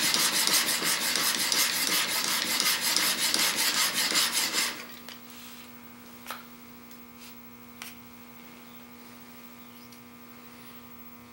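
Steel chisel back being rubbed in rapid back-and-forth strokes on a wet extra-coarse DMT diamond plate, a gritty scraping as the hollow spot is ground flat. The scraping stops about five seconds in, leaving a steady hum with two light clicks.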